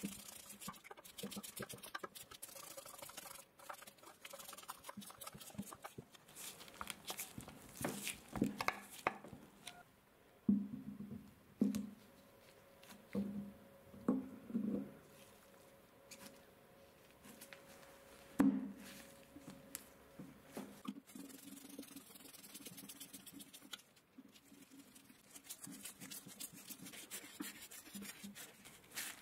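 Screwdriver driving slotted wood screws through a metal plate into the stool's wooden column: a run of scratchy clicks as the blade turns in the screw heads, with a few dull knocks in the middle.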